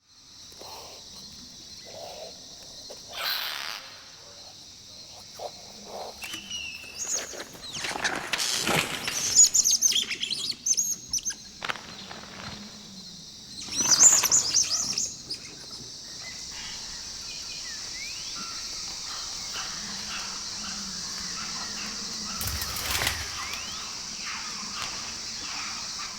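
Wildlife ambience sound effect: birds chirping over a steady high hiss, with several bursts of flapping wings, the loudest a third of the way in and about halfway through.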